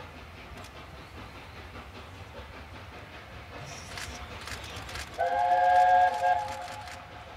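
Chime whistle of LNER A4 steam locomotive No. 60007 sounding one blast of a little over a second, a chord of several notes, about five seconds in, over the low rumble of the engine approaching out of a tunnel.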